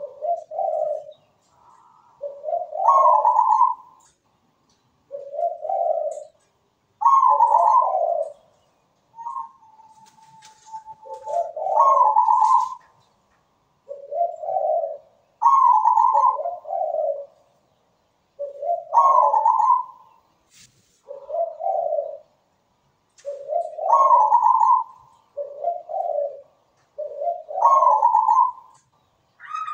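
Zebra dove (perkutut) cooing its song: short phrases of low and higher coo notes repeated every few seconds.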